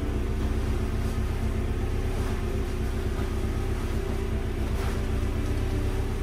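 1978 Vauxhall Cavalier Mk1's four-cylinder engine idling steadily, with faint rustling as the fabric car cover is dragged off the roof.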